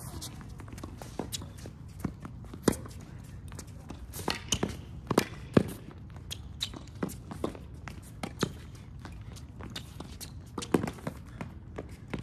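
Tennis rally: a string of sharp racket strikes and ball bounces at irregular intervals, the loudest about two and a half and five seconds in.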